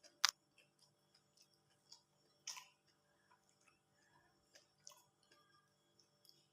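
Close-up eating sounds: quiet chewing and mouth smacks, with short sharp clicks, the loudest about a quarter second in and another about two and a half seconds in, over a faint steady low hum.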